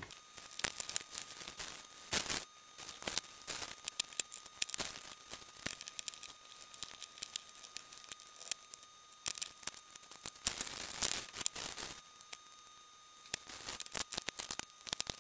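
Wet wipe and paper kitchen towel rubbing and crinkling against a multimeter's holster, with irregular small clicks and knocks as the plastic parts are handled.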